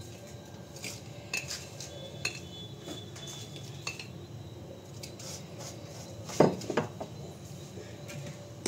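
Light clinks and taps of a spoon against a glass jar and a steel pan as black salt is tipped out onto roasted spices. Two louder knocks come about two-thirds of the way through.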